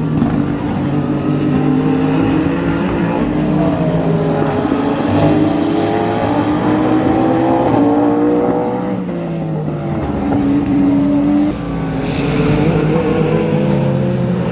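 Several race car engines running at once, their pitches rising and falling as the cars accelerate and lift.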